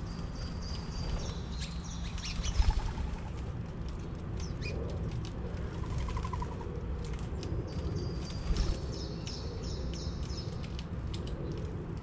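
Backyard birdsong: a small songbird sings two phrases of high whistled notes stepping in pitch, each a second or two long, one near the start and one about eight seconds in. They sit over a steady low hum, with scattered light clicks and two soft low thumps.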